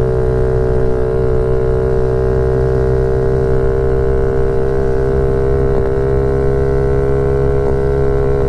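Honda CRF50 pit bike's single-cylinder four-stroke engine running flat out at a steady high pitch, held at the top of its revs in third gear.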